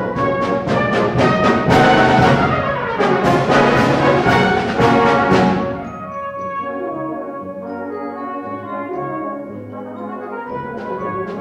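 Brass band playing a march: the full band loud, with regular percussion strokes, then dropping about six seconds in to a softer passage of held chords. The percussion comes back in near the end.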